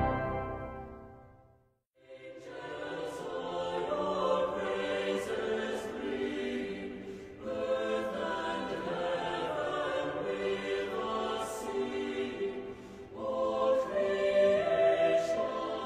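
Music fades out, and after a brief silence a choir begins singing a slow hymn in long held phrases, a new phrase entering about halfway through and again near the end.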